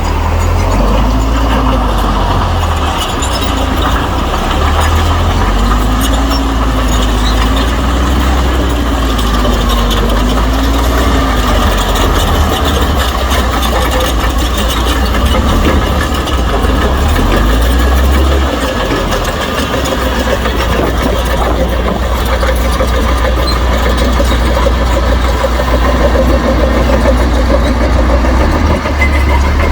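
Shantui bulldozer's heavy diesel engine running while working, with a tone that rises and falls repeatedly for the first dozen seconds or so.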